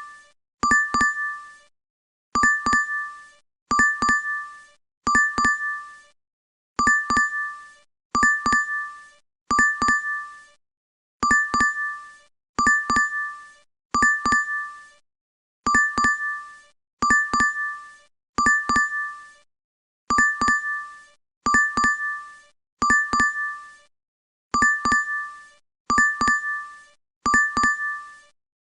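DoorDash app notification chime on a loop: a bright double ding, two quick strikes that ring out and die away, repeating evenly about every second and a half.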